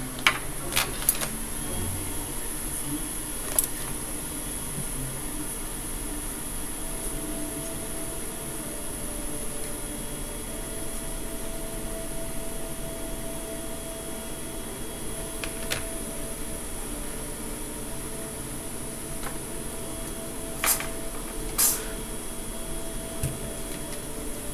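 Steady mechanical hum and hiss from workbench equipment, with a faint steady tone coming in about seven seconds in, and a few sharp clicks, two of them close together near the end.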